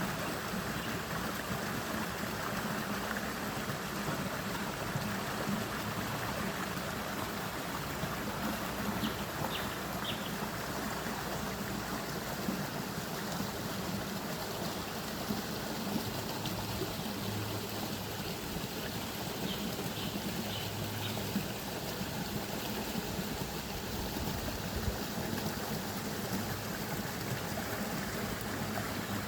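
Forest stream flowing and trickling steadily. Faint short high chirps come through twice.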